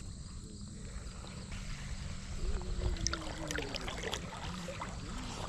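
River water running around wading anglers, with a steady low rumble of wind on the microphone and scattered light ticks and small splashes about three to four and a half seconds in.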